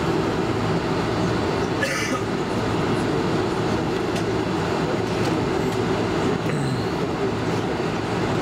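Steady cabin rumble of a Boeing 747-400 taxiing, its engines running at low taxi power, heard from a seat inside the cabin. There is a brief high-pitched squeak about two seconds in.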